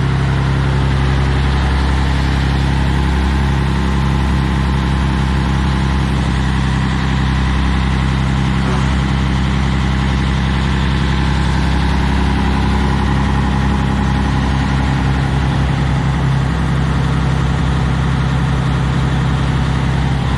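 Scania 113 truck's 11-litre straight-six diesel idling steadily through a straight-through exhaust with no muffler, giving a loud, deep rumble.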